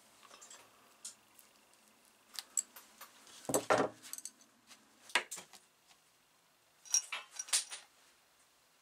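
Small metal blowtorch parts clinking and clicking as they are handled and worked with pliers, in a few scattered clusters of sharp clicks, the loudest about three and a half seconds in.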